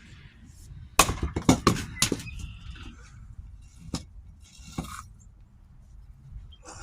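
Tasmanian-pattern axe striking a knotty round of firewood to split it: a sharp blow about a second in followed by a quick clatter of knocks, then two lighter knocks near four and five seconds.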